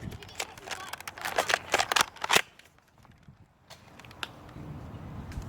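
A quick run of sharp clicks and knocks, handling noise, that stops about two and a half seconds in. A faint low rumble follows.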